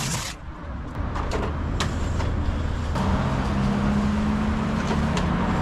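Small petrol lawn mower engine running with a steady hum, coming in about a second in and growing steadier and stronger from about three seconds in.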